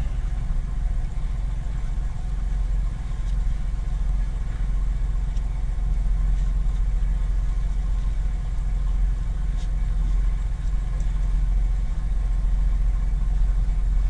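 A 2001 Camaro's 3.8-litre V6 idling steadily, heard from inside the cabin, while the steering wheel is worked from lock to lock to push fluid through a freshly refilled power steering system and bleed out the air.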